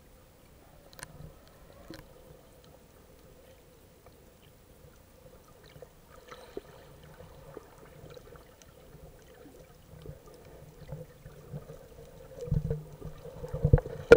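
Muffled underwater sound picked up by a snorkeler's action camera in its waterproof housing: faint water movement with a few sharp clicks, and louder low bumps and water noise over the last two seconds.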